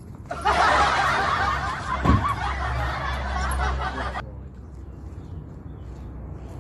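Laughter sound effect added in editing, starting abruptly and cutting off sharply after about four seconds, with a thump about two seconds in.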